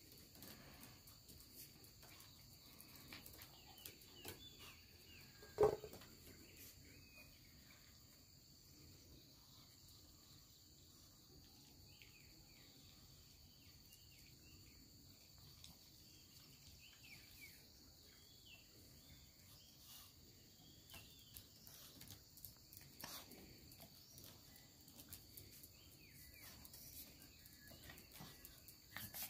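Quiet ambience with a steady high-pitched chirring of insects and faint scattered chirps. One brief, louder sound stands out about six seconds in.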